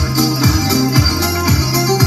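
Instrumental break of a pop backing track played over a PA, with a steady kick-drum beat about twice a second, a bass line and regular high percussion ticks.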